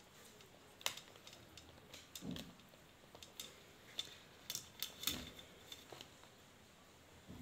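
Faint, irregular clicks and light handling noise as hands fit ceiling-fan lead wires into a small plastic wire connector.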